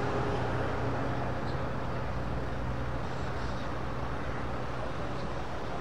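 Scania 660 S V8 truck's 16-litre V8 diesel engine idling steadily.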